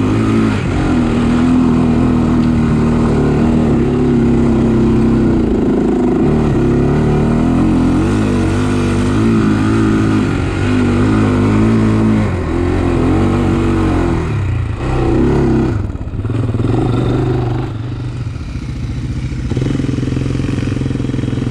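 The single-cylinder engine of a Honda 400X sport quad running under throttle while riding. Its pitch rises and falls as it is revved and eased off, dips about two-thirds of the way through, and settles lower and steadier near the end.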